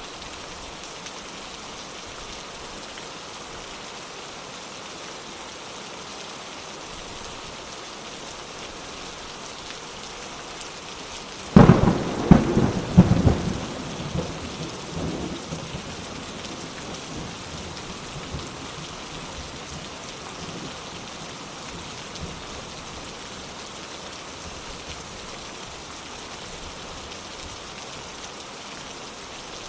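Steady heavy rain with a single thunderclap about a third of the way in: a sudden sharp crack followed by a few rolling rumbles that fade over several seconds, then the rain carries on.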